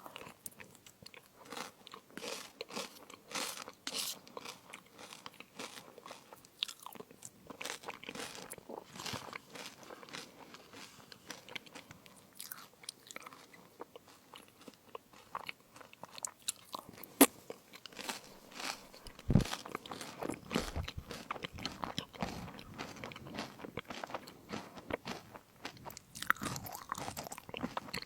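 Close-miked crunching and chewing of fruit crisps: a dense, irregular run of crackling bites and chews. There is one louder crack about two-thirds of the way through, and a low thump shortly after it.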